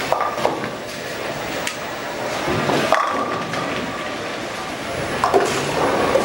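Bowling ball rolling down a lane and striking the pins with a sharp crash about three seconds in, over the constant rumble and clatter of balls and pins on neighbouring lanes.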